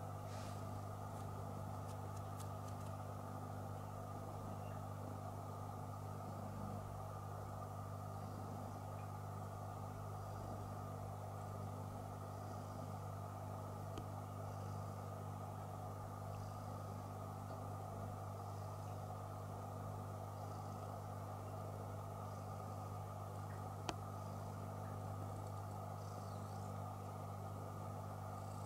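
Steady low electrical or mechanical hum, unchanging throughout, with a single small click about 24 seconds in.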